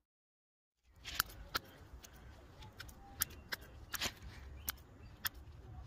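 After about a second of silence, scissors snip at the lower leaves and shoots of tomato plants, giving a series of sharp, short snips spaced roughly half a second to a second apart.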